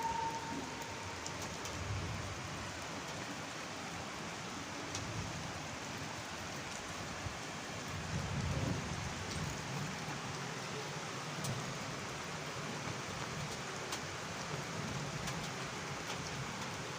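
Steady rain falling, with scattered small drop ticks. A low rumble swells briefly about eight seconds in.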